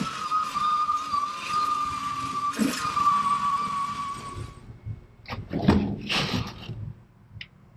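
A power tool running with a steady whine and hiss, cut off abruptly about four and a half seconds in, followed by a few short handling noises.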